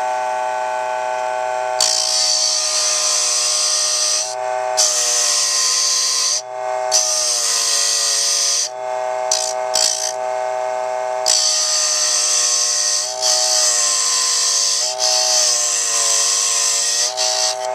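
Dremel Model 700 mini lathe's small electric motor running with a steady whine, while a pointed chisel cuts into a spinning wooden dowel in several stretches of a few seconds each, making a high scraping hiss. The motor's pitch dips slightly each time the chisel bites and loads it.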